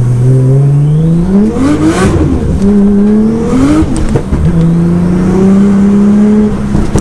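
Nissan Skyline GT-R's RB26DETT twin-turbo straight-six pulling hard under acceleration, heard from inside the cabin. The revs climb, drop sharply at two upshifts about two and four seconds in, each with a short burst of noise, then hold steady. The exhaust is loud.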